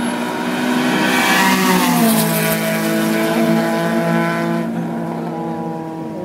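A car speeding past at high revs: its engine note drops sharply as it goes by about two seconds in, then holds and fades as it pulls away down the street.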